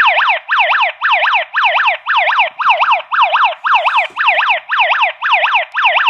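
ENKLOV Wi-Fi alarm hub's built-in siren sounding after the zone-one door contact sensor is tripped: a loud, repeating falling whoop, about two sweeps a second.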